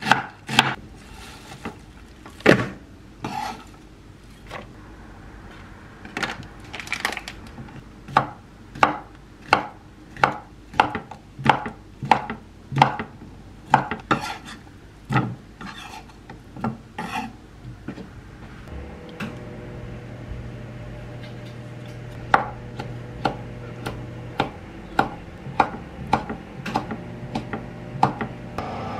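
Kitchen knife chopping on a wooden cutting board, steady strokes about one and a half a second: shredding cabbage, then slicing sausage and abalone. The chopping pauses briefly about two-thirds through, as a low steady hum comes in.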